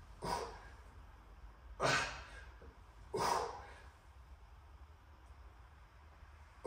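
A man's forceful exhalations: three short, sharp breaths about a second and a half apart, pushed out with the effort of each rep of a heavy seated dumbbell shoulder press.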